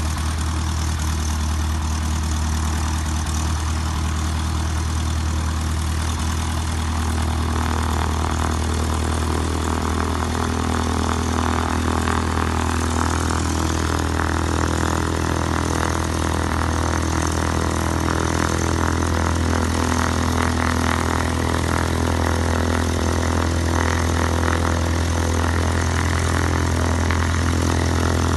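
Cessna 172's piston engine and propeller idling steadily. The sound gets a little louder from about seven seconds in and keeps rising slowly.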